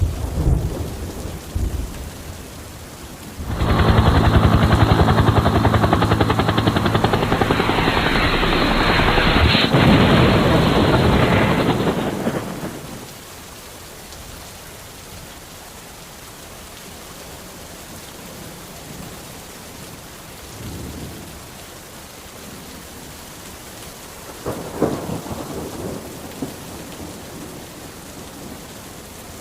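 Steady rain with thunder: a long, loud rolling peal starts a few seconds in and fades away after about eight seconds, and a shorter rumble comes near the end.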